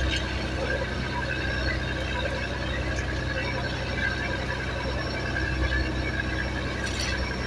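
Fishing trawler's engine running steadily with a low hum and a higher mechanical whine over it, with a brief scrape near the end.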